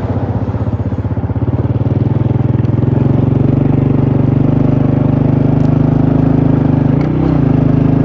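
A set of seven large sáo diều còi tàu ('train horn' kite flutes) sounding a steady low chord as the air of a moving vehicle blows through them. The chord builds in loudness over the first few seconds and sags briefly in pitch about seven seconds in, over the vehicle's running engine.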